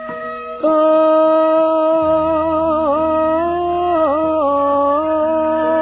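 Javanese gamelan accompaniment with a vocalist holding one long sung note that starts about half a second in and wavers and dips in pitch several times. A low steady hum joins about two seconds in.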